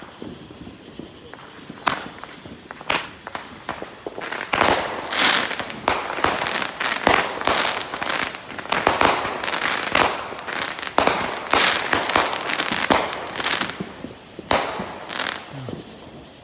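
Fireworks going off: two sharp bangs a second apart, then about nine seconds of rapid overlapping bangs and crackling, and two last sharp bangs near the end.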